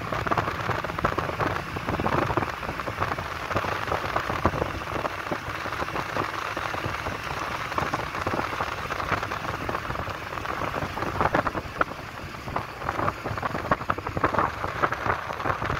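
Steady crackling, hissing noise inside a moving car, from the tyres on the road and the car driving along.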